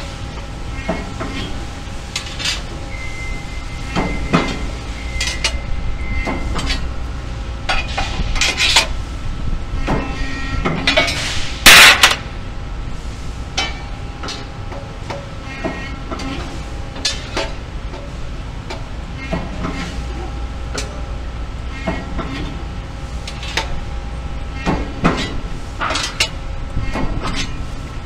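Press brake and sheet-metal shop floor: a steady machine hum with faint whining tones, broken by frequent uneven clanks and knocks as steel parts are handled and bent. There is one much louder metal clang about twelve seconds in.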